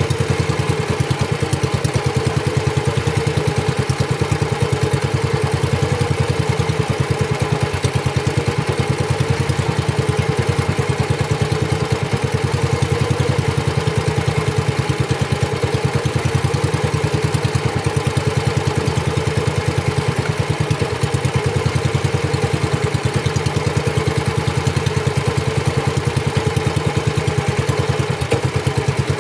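Small outrigger fishing boat's engine running steadily under way, a fast, even chugging that holds the same pace throughout.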